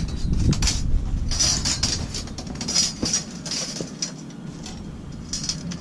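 A steel sawmill bandsaw blade clinking and rattling as it is twisted and folded into a coil, its loops scraping against each other. It is a run of metallic clatter over the first four seconds, with a brief burst more near the end.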